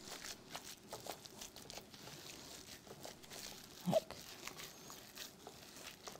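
Faint squishing and crinkling of a plastic-gloved hand kneading seasoned minced meat in a bowl, with a brief pitched sound about four seconds in.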